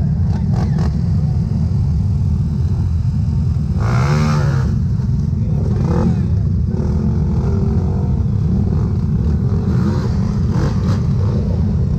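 Dirt bike engine running under a dense low rumble, revving briefly about four seconds in.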